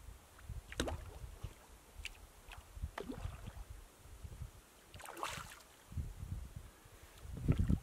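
A hooked landlocked salmon splashing at the lake surface as it is played in close to the rocks, in irregular short splashes, the loudest about five seconds in.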